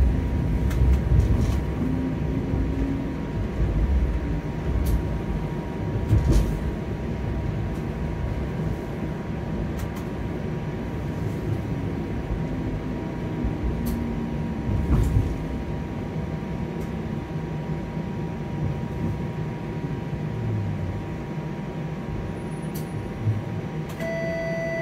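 Toronto streetcar running along its route: a steady low rumble of steel wheels on the rails, with a faint whine that rises and falls and occasional clicks. A brief electronic tone sounds near the end.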